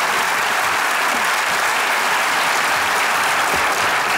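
Studio audience applauding, a dense, steady clapping that holds at an even level.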